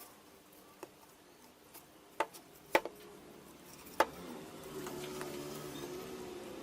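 A few sharp, separate knocks and clicks of wooden pieces and tools being handled, the loudest about two, three and four seconds in, followed by a faint wavering hum.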